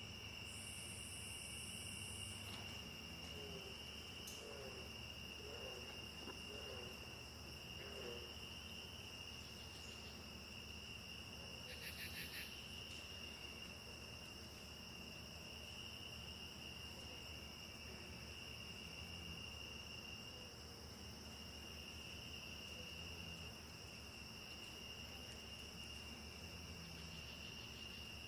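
Rainforest ambience: a steady insect chorus, crickets trilling at two high pitches, with a few short low chirping calls between about three and eight seconds in.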